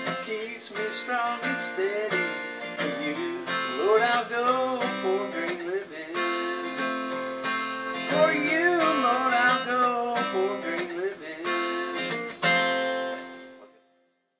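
Background song with a strummed acoustic guitar and a singing voice, fading out near the end.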